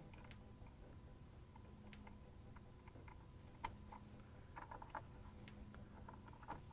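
A few faint clicks over near silence, from the wire spade connectors being pushed onto the terminals of a plastic Whirlpool refrigerator door switch (WPW10444115).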